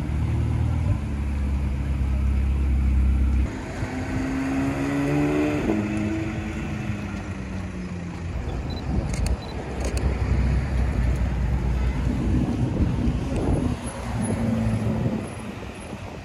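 Supercar engines in city traffic. A deep, steady engine note gives way abruptly, about three and a half seconds in, to an engine revving with a rising then falling pitch. Later come further engine and traffic sounds as cars pull away.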